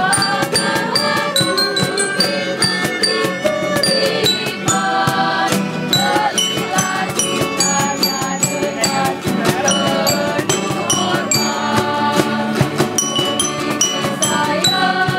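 Live acoustic ensemble music: a glockenspiel struck with mallets rings out bright, quick notes over acoustic guitars.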